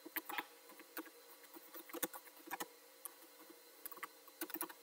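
Computer keyboard being typed on: irregular key clicks in small clusters, with short pauses between.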